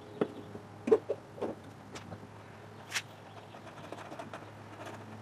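Hard plastic lid of a Harbor Freight vibratory tumbler being handled: a few irregular knocks and clicks in the first three seconds, the loudest about a second in, over a faint low hum.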